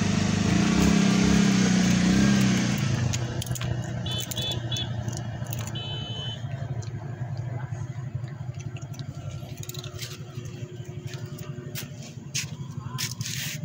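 A motor vehicle engine running close by, loudest for the first three seconds and then dropping to a steady, quieter low rumble. Scattered sharp clicks and a few short, high chirps sound over it.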